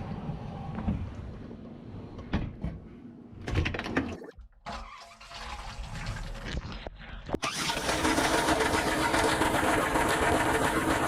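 Dishwasher running, heard from inside the tub: a low rumble with a few knocks at first. About seven seconds in, the water spray starts hitting, a loud steady rush with a hum under it.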